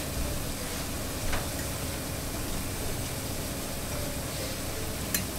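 Plantains sizzling steadily as they fry in shallow oil in a pan, with a light click of a fork against the pan near the end.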